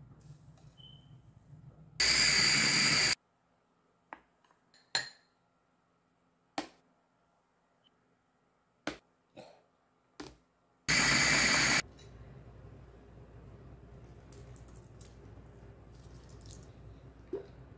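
Small electric food processor run in two short pulses of about a second each, chopping cilantro, parsley and garlic into chermoula, with a few light clinks of a spoon and glass jars between the pulses.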